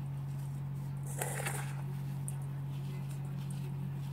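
Fingers crumbling dry floral foam crumbs, with one brief crunch about a second in and a few faint crackles, over a steady low hum.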